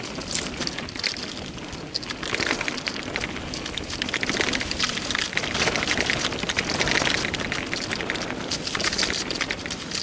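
Bicycle tyres rolling fast down a dirt trail, a continuous crackle of grit and small stones under the tread, louder in the middle stretch.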